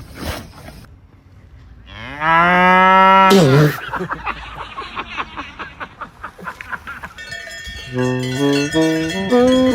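A cow mooing once, loudly, for about a second and a half, its call rising, holding, then dropping at the end. About seven seconds in, a tune of stepped, bell-like notes begins.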